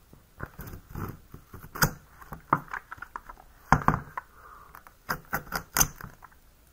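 Scissors snipping and plastic wrap crinkling as a sealed trading-card box is cut open: an irregular run of short clicks and crackles, with a few louder snaps.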